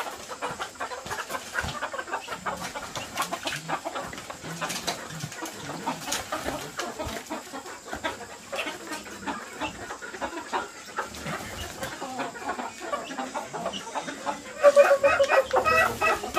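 Chickens clucking, with a louder, pitched call from one bird starting near the end.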